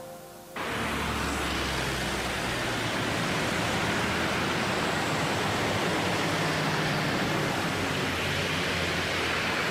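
Steady noise of city street traffic, a dull wash of passing cars, trucks and buses with a low engine rumble underneath, coming in suddenly about half a second in as background music dies away.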